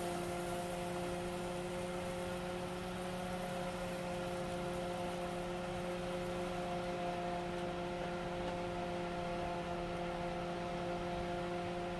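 A steady electrical hum with several fixed tones over a faint hiss, unchanging throughout.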